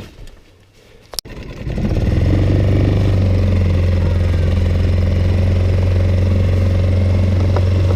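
A sharp click a little over a second in, then a small boat's outboard motor running steadily with a low, even hum.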